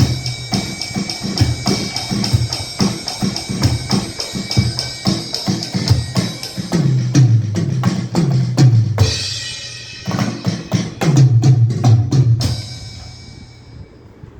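Alesis Nitro Mesh electronic drum kit played: a groove on kick, snare and cymbals, broken by two tom fills that run down in pitch, the second ending on a cymbal crash that fades out near the end.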